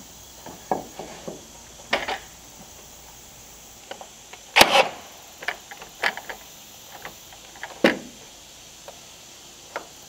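Cordless nail gun driving nails into a wooden trim board: a few sharp shots several seconds apart, the loudest about halfway through, with lighter knocks and clicks of the tool and board being handled between.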